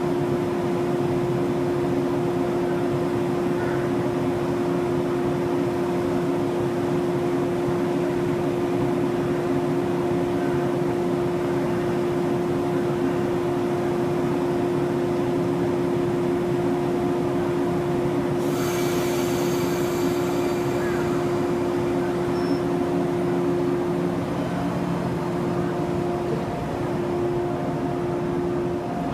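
JR 115-series electric train's onboard equipment running with a steady hum and a strong constant tone while the train stands. A short burst of hissing comes about two-thirds of the way in, and near the end the sound shifts as the train begins to move off.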